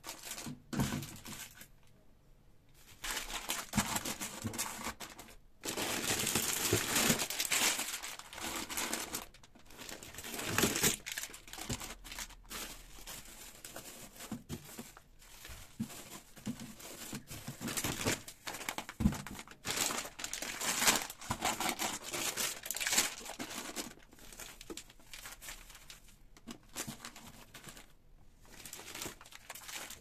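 Plastic food packaging (pasta and bulgur packets, a clear plastic bag) crinkling and rustling in irregular bursts as it is handled and laid into a drawer, with occasional knocks.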